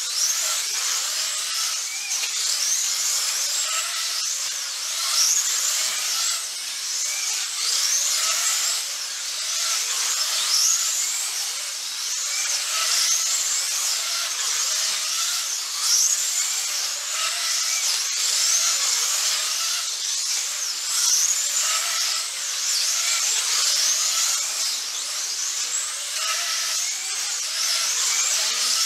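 Several 1/24-scale slot cars' small electric motors whining high as they race round the track, the pitch rising again and again as the cars accelerate, every second or two.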